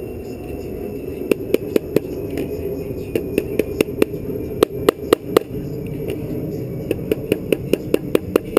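Quick, sharp taps on a hard part, coming in irregular runs of several strikes, over a steady low hum.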